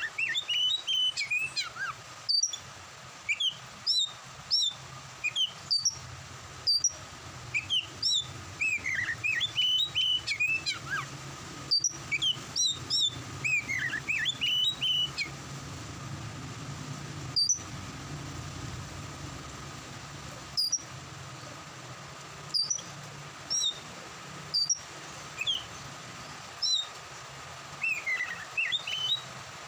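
Oriental magpie-robin (kacer) singing vigorously. Bursts of rapid, gliding whistled phrases alternate with single sharp high chirps every second or two, over a steady background hiss.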